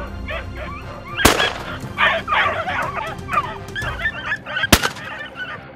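Two shotgun shots about three and a half seconds apart at a rabbit. Between them comes a rapid string of short, high-pitched animal calls.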